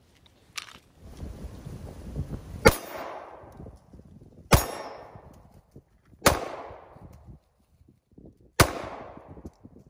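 Four shots from a 9mm Smith & Wesson EZ pistol, fired at a slow, deliberate pace about two seconds apart. Each shot trails off in a short echo.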